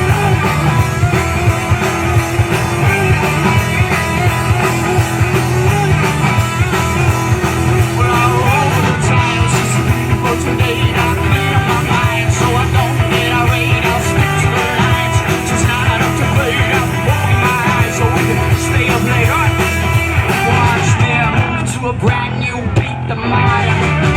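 Rock band playing a song with guitars, drums and singing.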